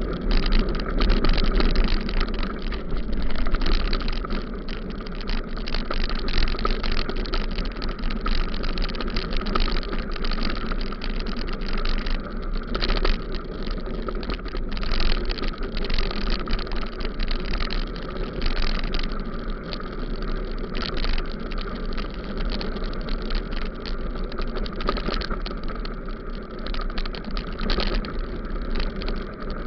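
Bicycle ride over a gravel road: steady tyre and road rumble with frequent knocks and rattles from bumps.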